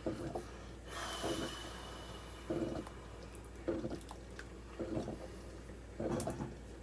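Pot of chicken soup being stirred with a spoon, liquid sloshing with a stroke about every second. There is a brief hiss about a second in.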